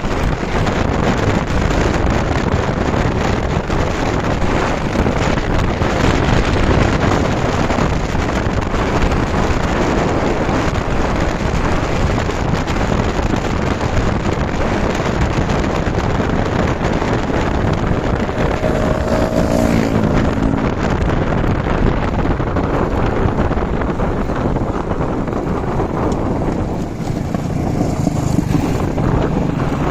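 Motorbike engine running while riding, mixed with steady wind noise rushing over the microphone.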